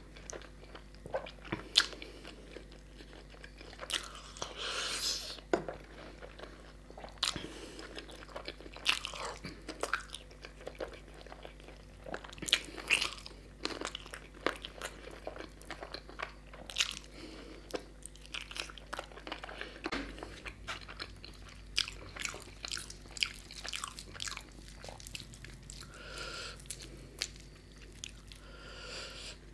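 A person chewing and biting on chicken curry eaten by hand, recorded close to the microphone: wet chewing with many short, irregular clicks and smacks.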